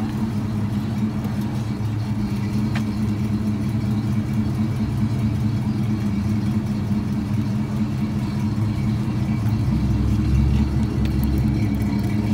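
1971 Oldsmobile Cutlass 442 convertible's V8 engine running as the car creeps past at low speed, a steady low exhaust note that grows louder about ten seconds in.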